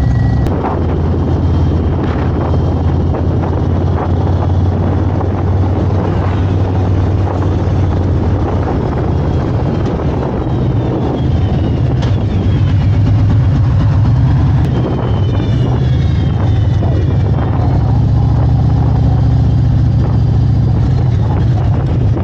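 Bagger motorcycle's engine running steadily while riding at road speed, with wind and road noise over it.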